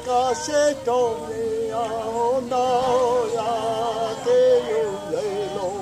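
A man singing a Mohawk song unaccompanied, in a high voice with a strong wavering vibrato on the held notes.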